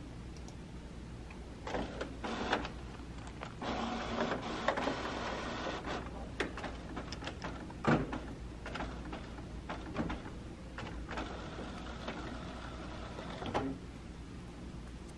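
Canon PRO-300 inkjet printer starting a print job: its mechanism whirs in stretches a few seconds long, broken by sharp clicks and knocks, the loudest about eight seconds in.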